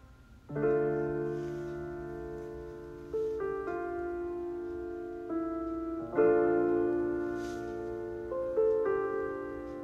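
Background music: slow, gentle piano chords, each struck and left to ring and fade before the next, a new chord every two or three seconds.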